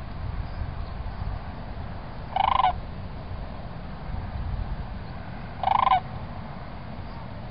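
Sandhill crane giving two short calls about three seconds apart, over a steady low rumble.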